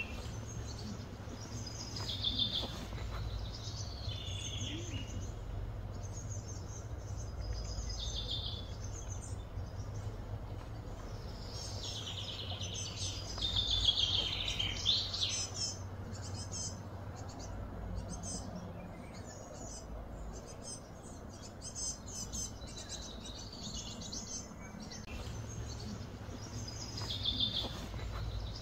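Birds chirping and calling in short, repeated high phrases, over a steady low hum.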